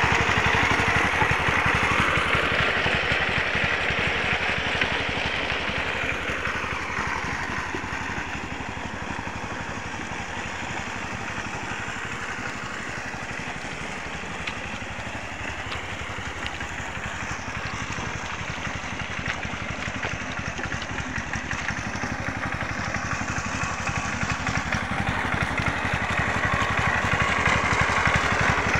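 Tractor engine running steadily while smoothing a ploughed rice paddy, fainter through the middle and louder again near the end.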